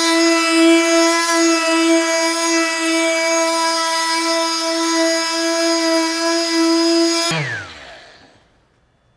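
Flex FX3411 cordless 5-inch random orbital sander with a 1500-grit disc, dry sanding a plexiglass window with a steady whine. About seven seconds in it is switched off and its pitch falls as it winds down.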